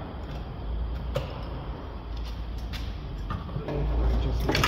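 Metal parts under a car being moved by hand, giving knocks and clunks over a low steady rumble; a sharp knock about a second in and a louder one near the end.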